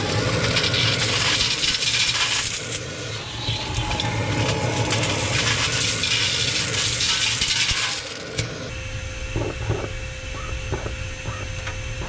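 Vacuum cleaner sucking strings of bead garland out of a metal cookie tin, the beads clattering and rattling against the tin and into the nozzle. About eight seconds in the clatter stops suddenly, leaving a steadier hum with a faint steady tone and a few scattered clicks.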